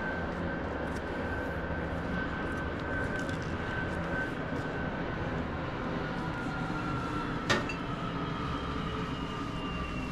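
Steady mechanical hum from a vehicle, with a high whine that slides slightly lower in pitch in the second half. A single sharp click about seven and a half seconds in.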